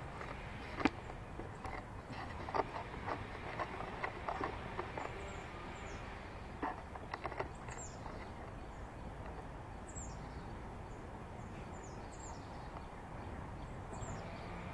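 Outdoor ambience: a steady low rumble, a scatter of sharp clicks and taps in the first half, and a bird giving short high chirps that drop in pitch, several times in the second half.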